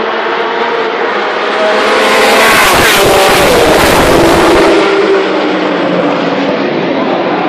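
Historic 1970s–80s touring race cars running on the straight. One car passes close about two seconds in, loudest for the next couple of seconds, with its engine note falling in pitch as it goes by. Other race engines keep running behind it.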